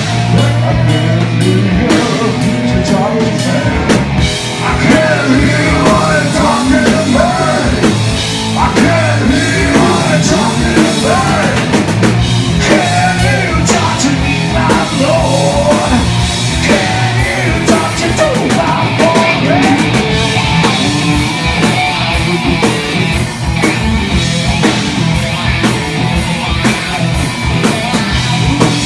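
Live rock band playing loudly: a singer over distorted electric guitar and a drum kit.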